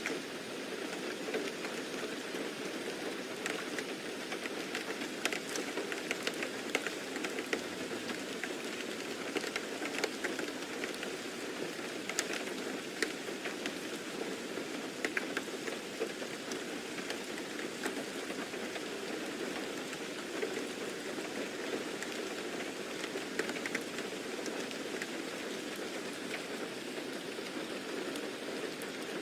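Steady rain falling, an even hiss with many small scattered drop ticks, as in a rain ambience track.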